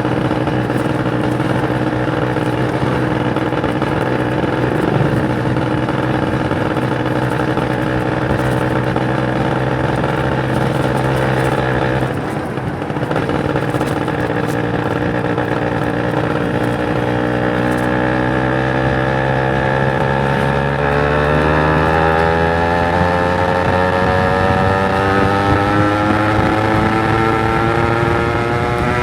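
Kawasaki Ninja 150 RR's two-stroke single-cylinder engine on the move, running at steady revs, easing off briefly about twelve seconds in, then rising steadily in pitch over the last ten seconds as the bike accelerates.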